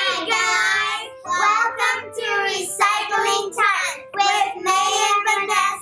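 Young girls singing together, a few short sung lines with brief breaks between them.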